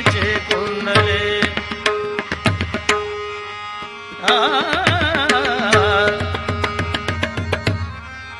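Devotional Indian music with tabla-style drum strokes and sharp cymbal-like clicks keeping a steady rhythm over a held drone note. About four seconds in, a loud melodic phrase with fast wavering ornaments comes in for about two seconds.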